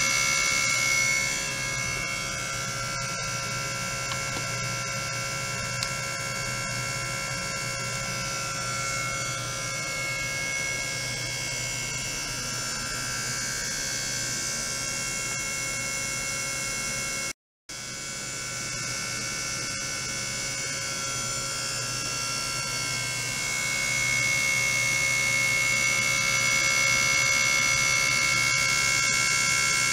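Ultrasonic probes in a water tank driven by a function generator, giving off a steady electrical buzzing hum with several high, steady whining tones over it. It drops out for a split second about halfway, is a little quieter for most of the first half, and grows louder again near the end.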